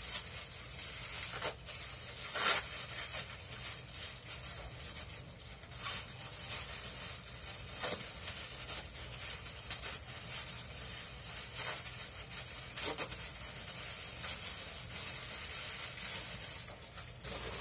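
Thin disposable plastic gloves crinkling and rustling as hands tear cooked chicken into shreds. A few sharper rustles stand out over a steady background hiss.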